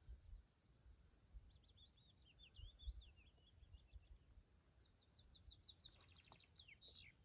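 Faint songbirds singing: a warbling phrase, then a quick run of repeated high notes that ends in a flourish near the end, over a low rumble.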